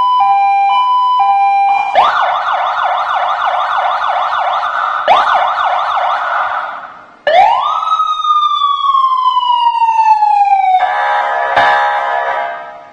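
Electronic police siren (Vietnamese traffic-police type) cycling through its tones. It starts with an alternating two-tone hi-lo, then a fast yelp of rapid rising sweeps. About seven seconds in, a sharp rise becomes one slow falling wail, and a short buzzing tone follows near the end before it fades.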